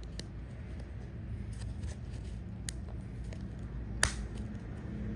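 Small packaging being handled: scattered faint clicks and taps, with one sharp click about four seconds in, over a low steady hum.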